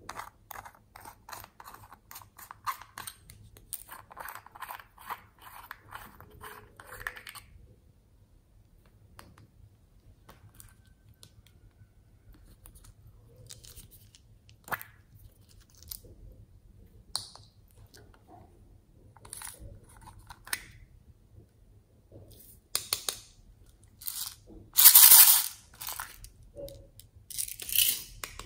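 Small plastic charms and toys handled close to the microphone: a run of rapid crisp clicking and crinkling, then scattered clicks and taps, then a few louder rustles near the end, the loudest about a second long.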